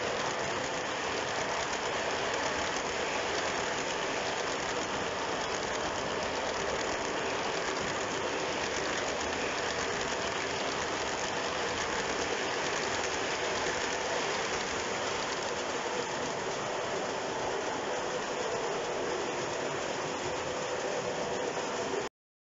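O scale model tank cars rolling along three-rail track: a steady rolling rattle of metal wheels on the rails, with faint clicking from the track. It cuts off abruptly near the end.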